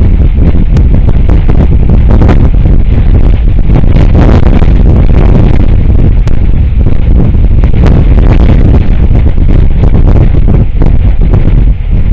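Strong wind buffeting the outdoor camera's microphone: a loud, steady rumble that rises and falls with the gusts.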